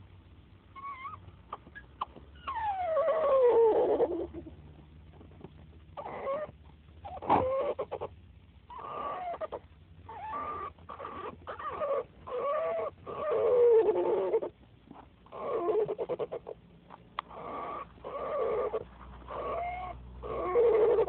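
A dog making a long series of odd, duck-like vocal calls, one after another, each bending up and down in pitch, with one long falling call early on.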